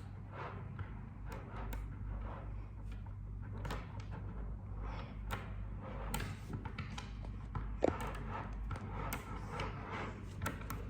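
Small magnetic balls clicking and tapping against each other as they are handled and fitted into a shape, with irregular light clicks and one sharper knock about eight seconds in. A low steady hum lies underneath.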